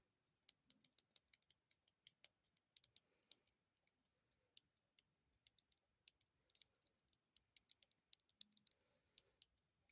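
Faint, irregular light clicks and taps, several a second in clusters, from a small remote and its packaging being handled.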